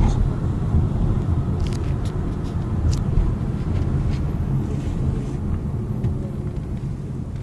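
Car's low engine and road rumble heard from inside the cabin while driving, with a few faint clicks; it grows gradually quieter toward the end.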